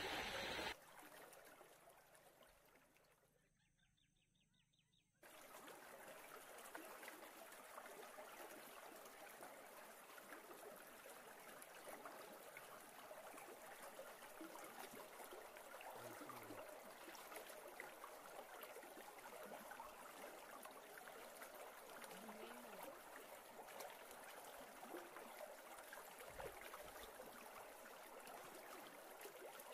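Faint, steady rush of river water flowing past the bank. It comes in abruptly about five seconds in, after a voice trails off and a few seconds of near silence.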